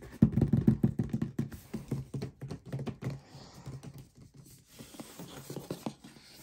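Fingertips tapping and drumming on the lid of a cardboard shoe box: a quick, loud flurry of taps in the first second or so, then scattered lighter taps and handling as the box is turned.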